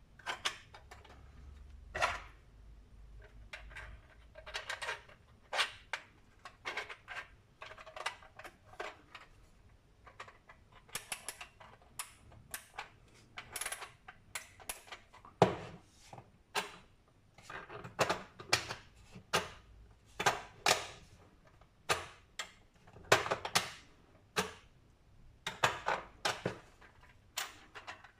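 3D-printed plastic puzzle box being worked by hand: its movable parts click and rattle, with irregular sharp clicks and short rasping, ratchet-like runs as pieces are slid and turned.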